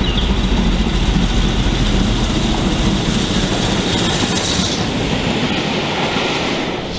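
Steam-hauled passenger train behind BR Standard Class 7 No. 70000 'Britannia' rolling past, its wheels rumbling and clattering steadily on the rails.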